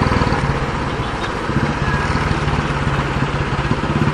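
Motorcycle engine running steadily, its rapid even firing pulses picked up by a helmet-mounted action camera's external mic, with wind rush over the microphone.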